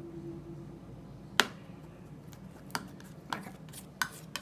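Palette knife clicking and tapping against the palette while mixing white oil paint with liquid white: about five sharp, separate taps, the loudest about a second and a half in, over a low steady hum.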